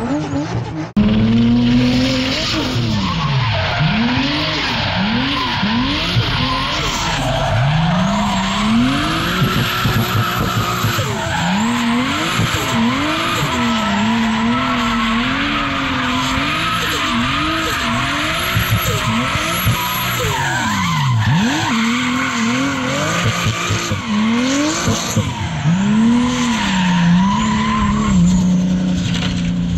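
The RB25 straight-six of a Nissan S14 drift car revving up and falling back over and over, about once a second, as the car slides sideways, with its tyres squealing and skidding throughout. The sound changes abruptly about a second in.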